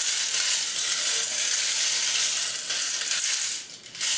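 LEGO Technic 42112 concrete mixer truck's plastic gear train clattering as its hand crank turns the mixer drum: a dense, continuous rattle that eases near the end, with a short burst just before it stops.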